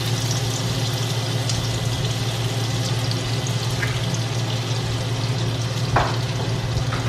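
Butter and cooking oil sizzling in a stainless steel frying pan on a gas burner, a steady fine hiss over a steady low hum, with one sharp tap about six seconds in.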